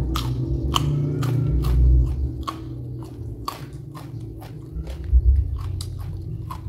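Close-up chewing of raw lalapan vegetables, a sharp crunch about two to three times a second, over a steady low rumble.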